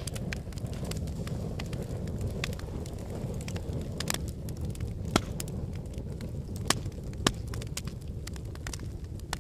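Wood fire burning in a fireplace: a steady low rumble of flames with frequent crackles and sharp pops, the loudest snaps about five, six and a half and seven seconds in.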